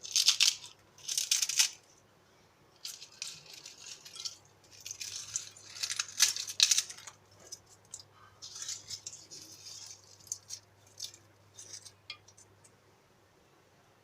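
Crisp fried papdi crackers crackling and clattering as they are added to a bowl of chaat, in several bursts, then scattered light clicks near the end.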